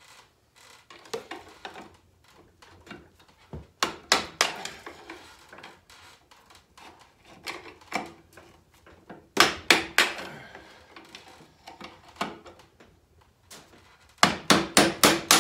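Hammer blows on metal in short bursts: a few knocks, a quick cluster midway, and a fast run of about a dozen strikes near the end with a ringing metal note.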